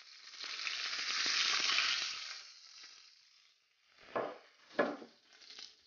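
Quail sizzling in a hot grill pan, a steady hiss that fades away about two and a half seconds in. Then two short knocks as metal tongs work the salad on the plate.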